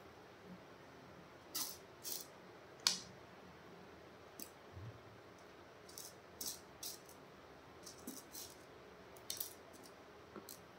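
Small kundan stones clicking against one another and the tabletop as they are picked through in a pile: faint, irregular light ticks, about a dozen, the loudest about three seconds in.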